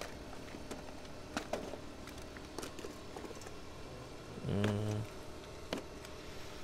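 Faint scattered clicks and light rattles of squid jigs and lead sinkers being picked through in a plastic tackle box. A short voiced murmur from a man comes about four and a half seconds in.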